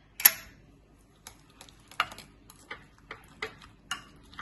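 Egg batter being mixed in a glass bowl: one sharp clink against the glass near the start, then light, irregular clicks and taps, roughly two or three a second.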